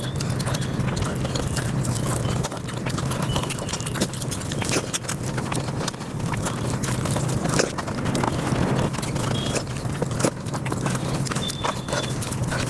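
Eating sounds sped up five times: a fast, continuous patter of chewing, lip-smacking and wet mouth clicks.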